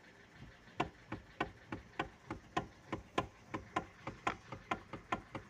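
Steering column of a first-generation facelift Kia Ceed knocking as the wheel is rocked slightly left and right: a steady run of light knocks, about three a second, starting a little under a second in. The knock is new and feels as if something is catching; the owner suspects the electric power steering's elastic coupling (the 'spider').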